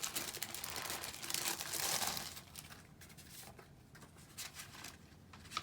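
Rustling and crinkling as the keyboard's printed leaflets and their wrapping are handled and unfolded, loudest for the first two seconds, then fainter scattered handling sounds.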